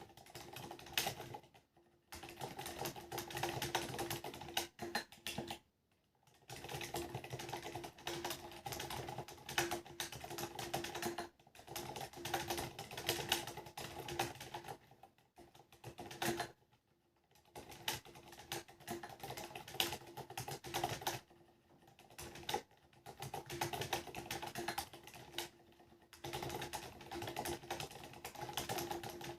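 Typing on a mechanical keyboard with Cherry MX Silent Black switches and ABS SA-profile keycaps: a rapid patter of key presses in runs of several seconds, with short pauses in between.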